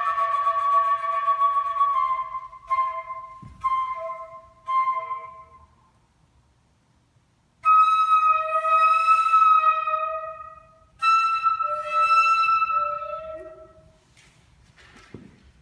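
Solo flute playing held notes, then three short detached notes, then a pause. After the pause come two long sustained notes, which fade away near the end.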